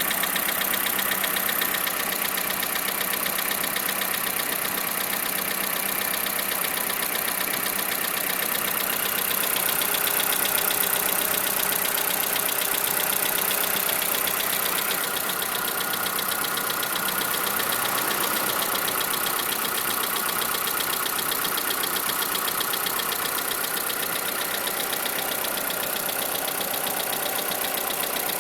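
2011 Skoda Fabia engine running steadily with a fast, even knocking: the engine knock the owner is complaining about.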